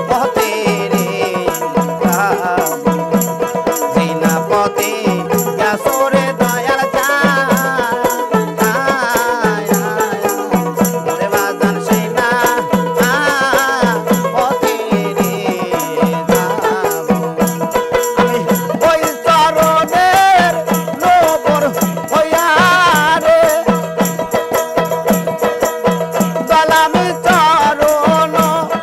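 Baul devotional jikir song: a man singing with a group, accompanied by a plucked dotara, a small hand drum keeping a steady beat and the jingles of a shaken tambourine.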